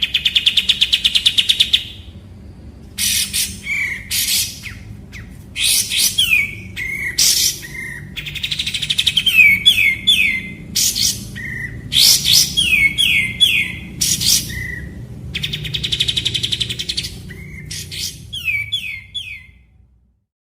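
Kapas tembak, a bulbul, singing in repeated phrases: fast buzzy trills, quick runs of three falling whistled notes and short upslurred notes, over a faint low hum in the recording.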